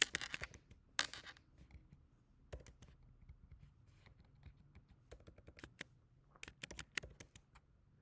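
Typing on a computer keyboard: scattered keystrokes in short clusters with pauses between them, a run of them near the end.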